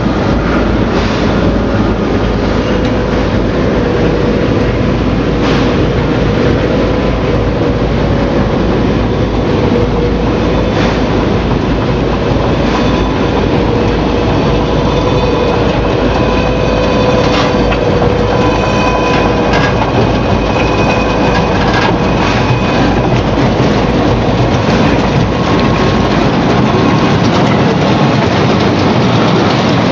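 Stainless-steel potato chip processing machinery running: a steady mechanical clatter with a wavering hum and scattered clicks.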